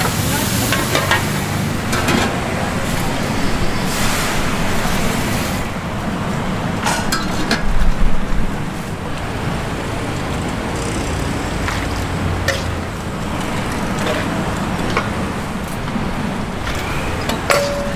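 Street-food stall noise: a steady low traffic rumble, with the hiss of frying in the first six seconds or so and a few sharp clinks later, likely utensils on the wok.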